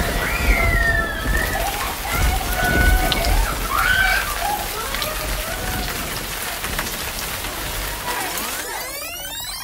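Storm sound effect: steady heavy rain with low rumbles of thunder, easing off near the end.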